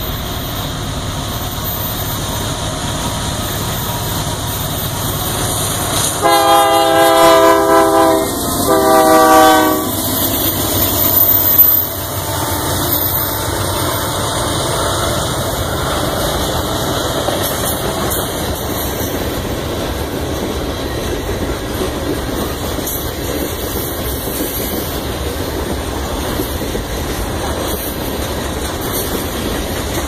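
Union Pacific freight locomotive's air horn sounding two blasts, several tones at once, a long one of about two seconds and then a shorter one, about six seconds in. The train's rolling noise builds to a peak as the locomotives pass, then the freight cars roll by with a steady rumble and wheel clatter on the rails.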